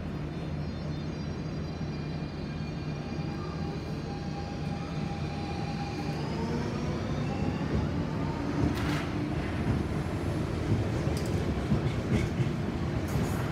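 Copenhagen S-train, an electric commuter train, accelerating: the whine of its traction motors climbs in pitch over a steady rumble. About two-thirds of the way through, sharp wheel clicks over the rail joints set in and it grows a little louder.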